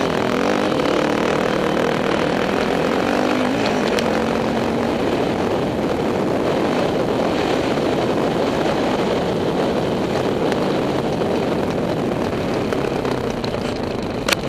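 Motocross dirt bike engine running on the move, heard through an onboard camera, its pitch rising and falling with the throttle under a heavy, steady rush of wind noise. A sharp click comes just before the end.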